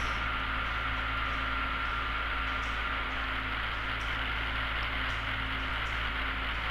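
Light aircraft's engine and propeller running at climb power, a steady even drone with a rush of noise and a low hum.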